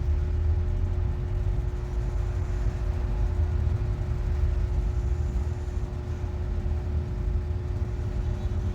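Steady low mechanical rumble with a constant humming tone, like a motor or fan running, even throughout.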